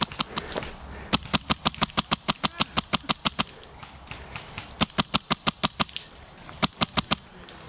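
Airsoft rifles firing in rapid bursts: sharp, evenly spaced cracks at about seven a second, in several bursts with short pauses between them.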